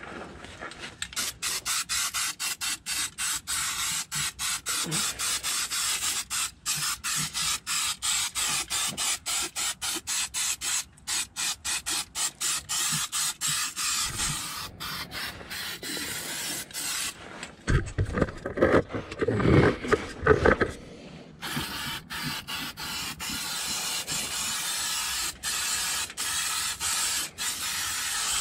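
Aerosol can of Fluid Film rust inhibitor spraying in a long hiss that breaks off for an instant several times a second. It stops for a few seconds past the middle, when louder rustling and knocking take over, then resumes.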